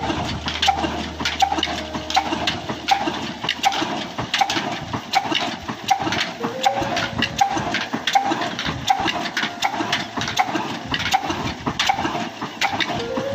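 Old Ruston stationary engine running under load, driving a water pump by a flat belt, its exhaust beating steadily about twice a second over a clatter of clicks and knocks.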